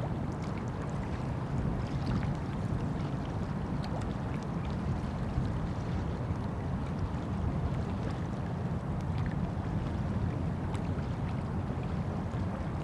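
Wind rumbling on the microphone: a steady low noise with faint scattered ticks over it.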